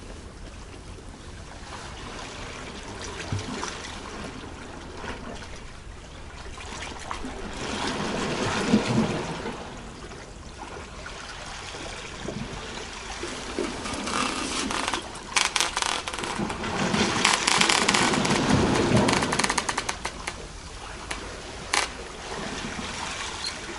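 Seawater surging against and draining off a rock ledge, swelling about eight seconds in and again, louder, from about fourteen to twenty seconds, with rapid crackling at the height of the second surge.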